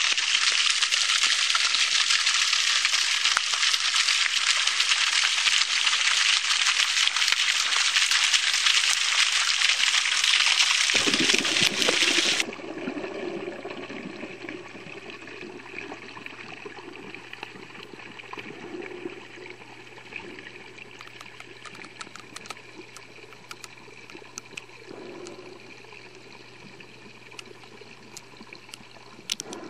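Rushing water, a loud steady splashing hiss that cuts off abruptly about twelve seconds in, giving way to a quieter muffled underwater sound with a low hum and scattered faint clicks.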